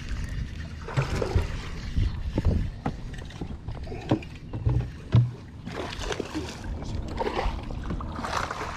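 Irregular thumps and knocks of someone moving about on a bass boat's carpeted deck and handling fishing rods, with some rustling close to the microphone.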